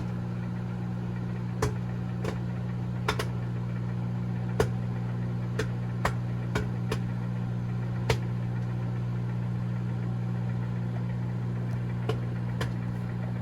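Microwave oven running with a steady hum while a bag of microwave popcorn pops inside. The pops are sharp and sparse, single ones every half second to second, then a long gap and two last pops near the end: the popping is dying down, the sign that the popcorn is nearly done.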